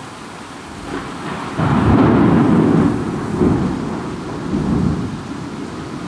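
Thunder rolling over steady heavy rain: a low rumble builds about a second in, breaks loudly about a second and a half in, then rolls on in several waves and slowly eases.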